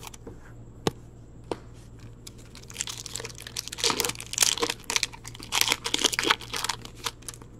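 Foil trading-card pack being torn open and crinkled by hand: a few soft clicks at first, then an irregular crackle of tearing, crumpling wrapper from about two seconds in.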